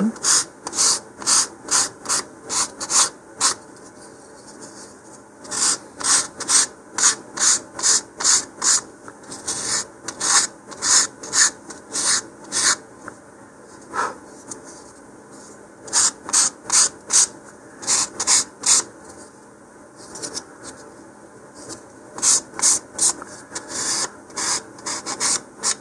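Medium-grit sandpaper on a wooden sanding block rubbed back and forth along the edge of a thin wooden fin, rounding the edge. The rasping strokes come about two to three a second, in runs of several seconds with short pauses between.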